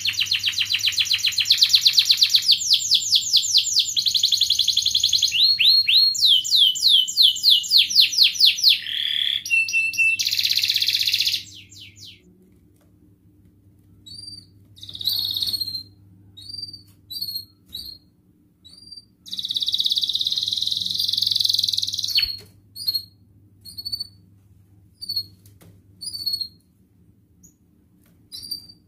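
Domestic canary singing: about twelve seconds of continuous song made of fast rolling trills and rapid repeated notes, then a string of short separate chirps with one more sustained trill about twenty seconds in.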